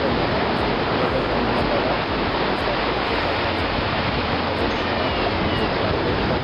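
Steady, even rushing of turbulent water.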